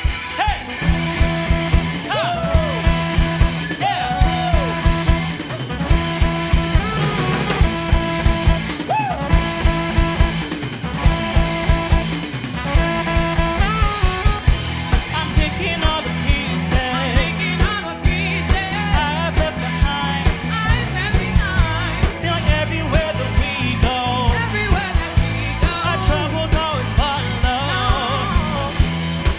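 Live pop-gospel-jazz band playing with drum kit, bass, guitar and saxophone. A drum kit keeps a steady beat under held bass notes while a lead line bends in pitch over the top, growing busier about halfway through.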